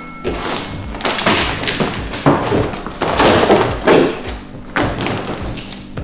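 Background music with a steady thumping beat.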